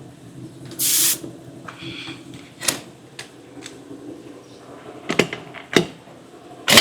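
Scattered sharp clicks and knocks of hand tools and metal parts being handled, with a short hiss about a second in, over a low steady hum. A loud noise starts right at the end.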